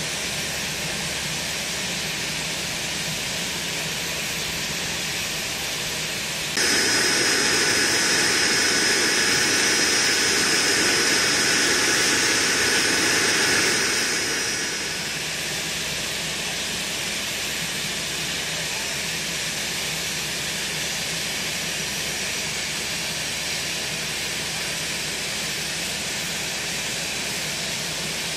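Nimrod maritime patrol aircraft's Rolls-Royce Spey turbofan engine running on the ground: a steady jet rush with a high whine. It jumps suddenly louder about six seconds in and eases back down around fourteen seconds.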